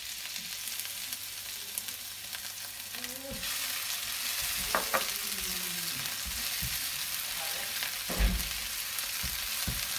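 Pounded chilli and garlic sizzling in hot oil in a nonstick frying pan while being stirred with a spatula. The sizzle grows louder about three seconds in, and the spatula knocks against the pan a few times, most loudly near the end.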